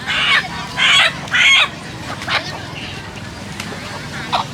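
Roosters calling: three loud, pitched calls in quick succession in the first two seconds, then fainter clucking with a couple of short calls near the end.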